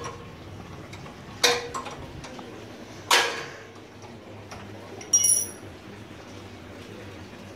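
Metal tools clinking and knocking on the Kawasaki Vulcan 900's rear end while the drive belt tension is being loosened: about four sharp clanks, roughly a second and a half apart, the last one ringing high.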